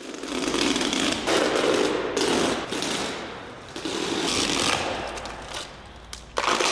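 Red masking tape being peeled up off an epoxy flake floor coating, a loud crackling rip that comes in several long pulls.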